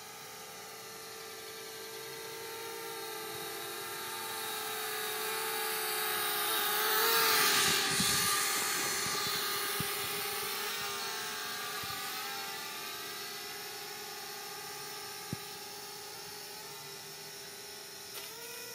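Flitt foldable toy quadcopter buzzing in flight, its small propellers giving a steady high whine that wavers in pitch. It grows louder to a peak about seven or eight seconds in as it passes closest, then fades as it drifts away, unresponsive on a nearly flat battery.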